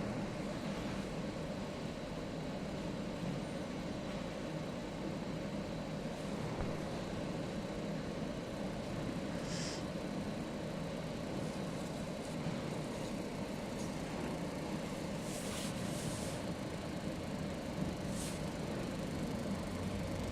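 MOPA fiber laser marking machine running with a steady hum and a faint held tone, with a few brief high hisses around the middle and near the end.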